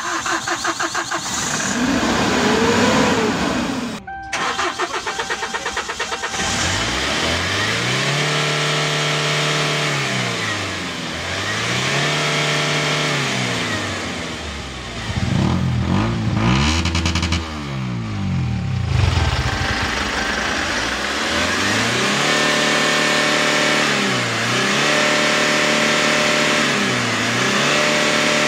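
Kia K2500 diesel engine cranked and started, then revved again and again, its pitch rising and falling every two to three seconds. The engine is running on a freshly rebuilt number 4 injector, whose leaking return had caused the white smoke and hard starting.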